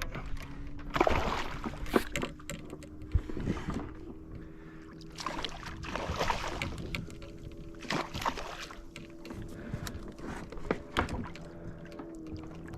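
Water splashing and sloshing against the side of a kayak, with irregular knocks and rustles as a hooked needlefish is brought in and handled at the hull, under a steady low hum.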